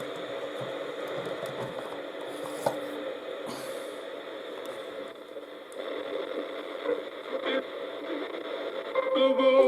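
Bush Classic radio's speaker giving out steady hiss and static between stations, with a few faint clicks, as the newly repaired battery-powered set is tuned. Near the end a station comes in and music starts playing.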